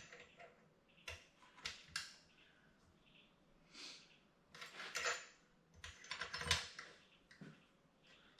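Light metallic clicks and taps from a hand tool on the cylinder bolts of a two-stroke demolition saw as the freshly fitted cylinder is tightened down. They come in short bursts: a few about a second in, a busier run around five to six and a half seconds in.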